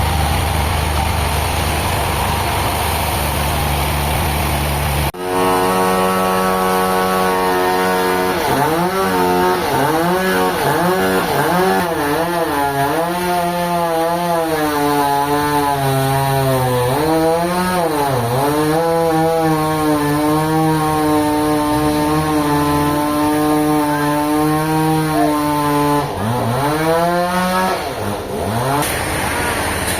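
Engine-driven saw running under load. Its engine note dips and recovers again and again as the blade works through wood, holds steady for a stretch, then bogs down sharply near the end. The opening few seconds are a different, steadier machine noise, cut off abruptly.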